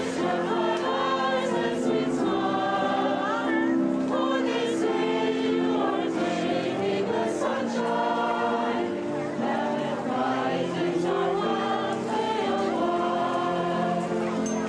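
A group of adults singing a song together in chorus, several voices holding and changing notes in unison.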